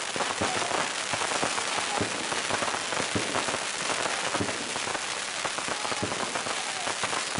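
Firecrackers going off in a dense, continuous crackle, many sharp pops running together like heavy rain, with a louder bang here and there.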